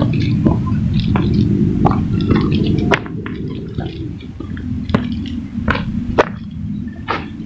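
Footsteps on a stepped dirt path, a short scuffing step about every second, over a steady low rumble that drops suddenly about three seconds in.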